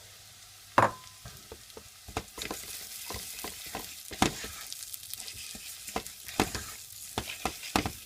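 Uncooked rice being stirred with a spoon into onion frying in oil in a pan: a sizzle under repeated clicks and scrapes of the spoon against the pan, with one sharp, ringing clink about a second in.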